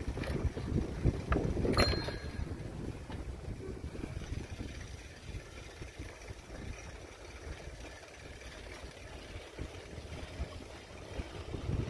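Wind buffeting the microphone as a low, uneven rumble while the camera moves along a path, strongest in the first two seconds, with a few sharp knocks and a brief high tone near the two-second mark, then easing off.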